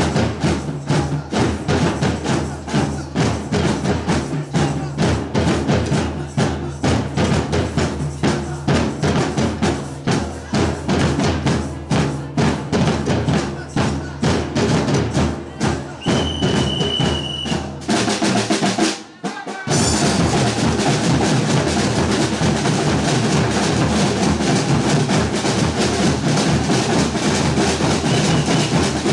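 A percussion group of bass drums and snare drums plays together in a steady, driving rhythm. A short high steady note sounds just past halfway, and soon after, the playing drops out for a moment and comes back denser.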